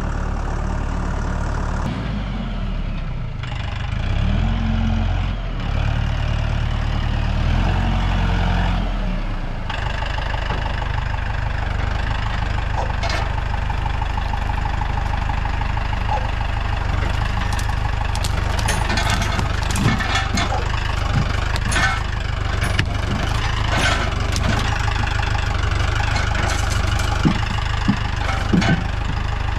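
Mahindra compact tractor's diesel engine running. Its note shifts up and down for the first several seconds, then holds steady. In the second half come scattered knocks and clanks as the front loader's grapple works a pile of logs.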